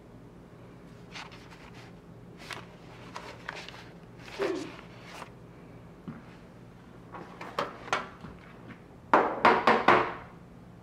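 Household objects being handled: scattered light knocks and clicks, then a quick run of louder clunks about nine seconds in.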